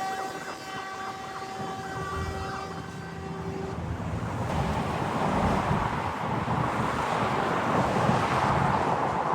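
A fire truck's air horn holds one steady, buzzy note and stops a little under four seconds in. Vehicle and wind noise then grows louder.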